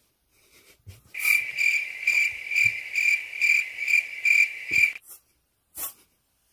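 Electronic beeping: a high, even tone pulsing a little over twice a second for about four seconds, then cutting off suddenly. A knock and a sharp click follow near the end.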